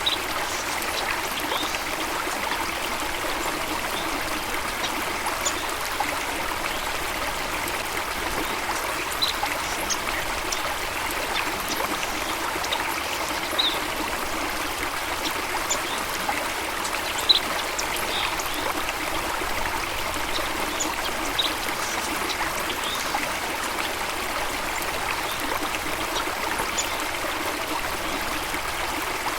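Steady rush of running water, with short high bird chirps here and there.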